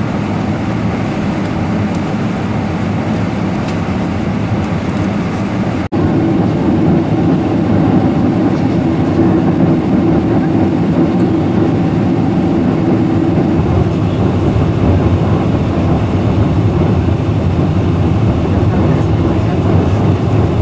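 Steady rumble of engine and airflow noise inside the cabin of a Boeing 747-400 jet airliner. It cuts off sharply about six seconds in and resumes a little louder and deeper.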